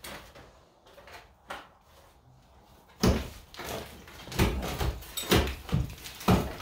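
A few soft knocks, then from about three seconds in a run of loud cracks and thuds, about two a second, as old stucco is broken away from a wall and chunks drop.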